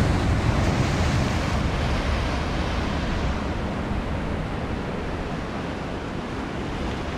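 Ocean surf breaking and washing over the boulders of a rock breakwater, a continuous rushing wash that eases slightly toward the end.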